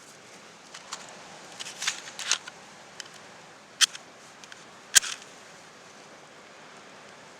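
A handful of sharp cracks from dry twigs and tinder at a small twig stove being lit, the loudest about five seconds in, over a steady background hiss.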